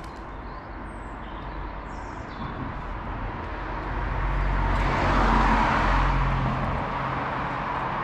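A road vehicle passes by on the street: its tyre and engine noise swells to a peak about five seconds in and then eases off, with a low engine hum underneath. A couple of faint bird chirps come in the first two seconds.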